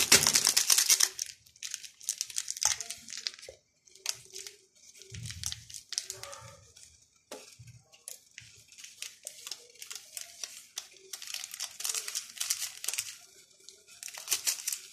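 Foil masala sachet crinkling and being torn open, then shaken out, in repeated crackly bursts.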